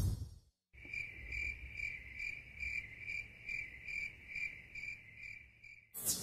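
A cricket singing: one steady high trill that swells in even pulses about two and a half times a second, starting just after the music stops and ending as it comes back.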